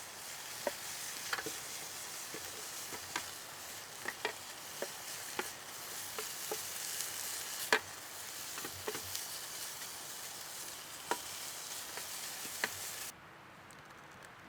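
Food sizzling in a pan over an open campfire: a steady hiss with scattered pops and crackles, cutting off suddenly near the end.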